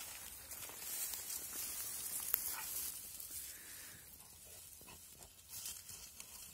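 Dogs digging and nosing into a burrow in a dry grassy bank: rustling of dry grass and scratching of loose soil, louder in the first few seconds.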